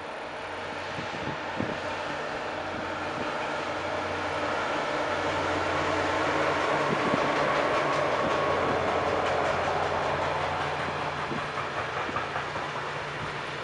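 Freight train hauled by two diesel locomotives passing: the engines' steady hum swells to a peak a little past halfway as they go by, then eases off while the wagons roll past with wheel clicks on the rails.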